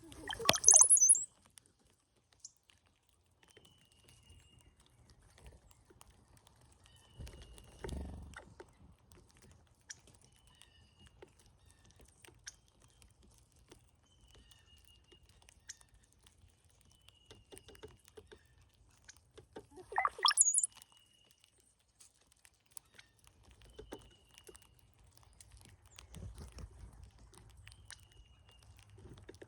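Male brown-headed cowbirds singing: twice, once at the start and again about 20 seconds in, a low gurgle that rises into a thin, very high squeal. Faint short chirps repeat every couple of seconds, with a dull thump about 8 seconds in.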